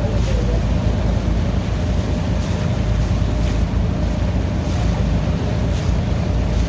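A boat underway on the sea: a steady low motor rumble with wind buffeting the microphone, and water splashing about once a second.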